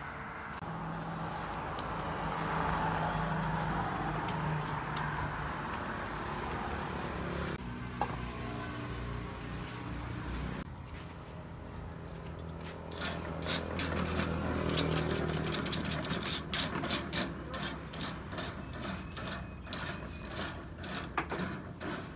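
A steady rushing hum at first. From about halfway, rapid scraping and clicking of metal tongs stirring burning charcoal under a wire grill.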